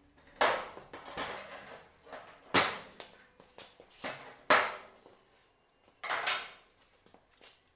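Hand tools clanking and scraping against aluminum trim as it is pried and knocked loose from a trailer's metal body: four loud metallic strikes, each ringing briefly, with lighter knocks and scrapes between.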